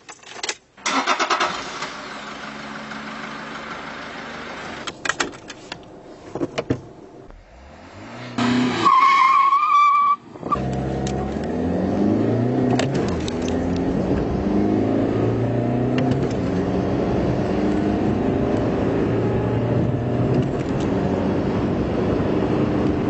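Toyota Yaris 1.4 D-4D four-cylinder turbodiesel idling with a few clicks, then, from about halfway, accelerating hard through the gears, its pitch climbing and dropping back at each shift.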